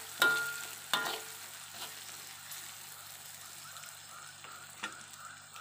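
Ground spice paste sizzling as it fries in oil in a wok. A metal spatula stirs and knocks against the pan twice in the first second, then a steady, quieter sizzle carries on.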